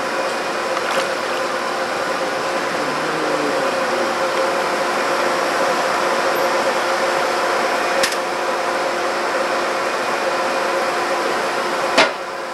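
Steady mechanical hum with hiss, carrying a few constant tones, with faint clicks and one sharp click near the end.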